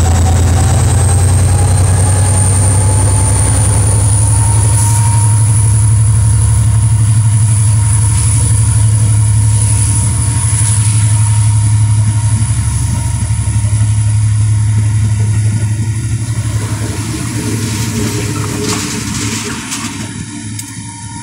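KiwiRail DFB class diesel-electric locomotives hauling a passenger train past under power: a loud, steady deep engine drone with a whine that rises in pitch over the first few seconds, and a few clicks from the wheels on the rails. The sound fades as the train draws away near the end.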